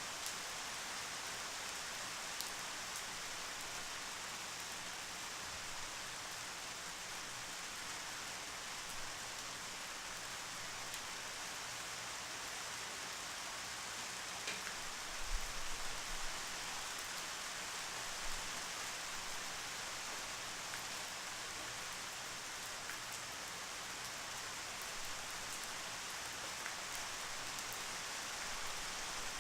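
Steady rainfall, an even hiss of rain with scattered drop ticks. About halfway through, a brief cluster of low thuds rises above it.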